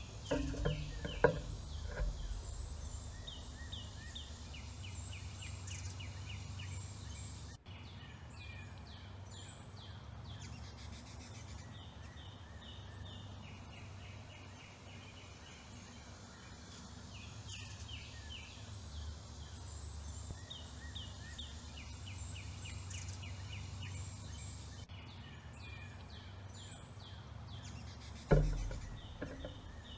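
Songbirds singing in the background, repeated quick runs of short high notes, over a steady low outdoor rumble. A few knocks about a second in, and a loud thump near the end, from birds landing at the feeders.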